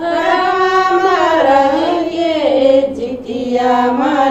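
Women's singing of a Tharu Jitiya folk song: long held notes that slide up and down in pitch, settling on a lower held note near the end.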